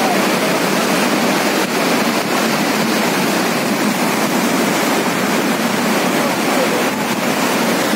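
Muddy floodwater rushing in a fast torrent: a loud, steady roar of churning water.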